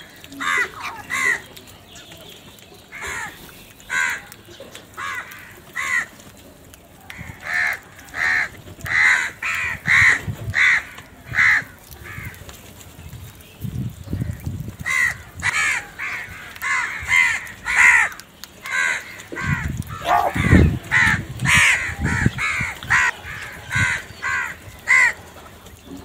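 A flock of house crows cawing, short harsh calls coming one after another and overlapping, several a second at times, with brief gaps. A few low thumps break in, the strongest about twenty seconds in.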